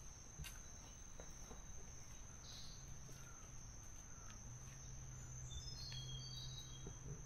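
Faint forest ambience: insects keep up a steady high-pitched drone, and a bird gives a few short chirps about six to seven seconds in, over a low hum.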